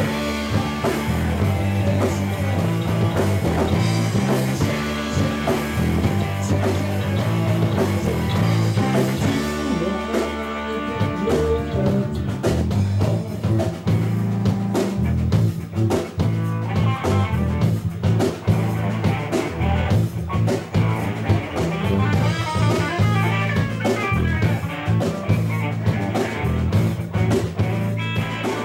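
Live rock band playing: electric guitar, electric bass and drum kit.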